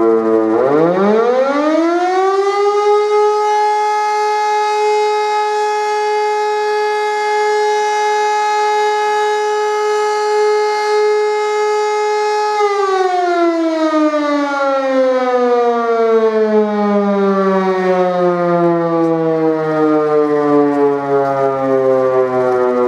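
Siemens E57 motor-driven civil defence siren sounding in a test alarm. It winds back up from near standstill to a steady tone and holds it for about ten seconds. Then it is switched off and slowly coasts down in pitch.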